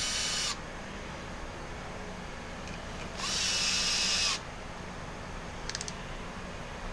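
Compact cordless drill/driver with a T25 Torx bit running screws into a pole saw's gearhead housing. It runs in two short spurts, one ending just after the start and one of about a second in the middle, its motor whine winding down each time it stops. A few light clicks come near the end.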